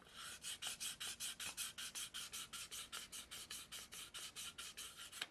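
Quick, even back-and-forth rubbing or scraping strokes on a hard surface, about six a second, starting at the beginning and stopping abruptly at the end.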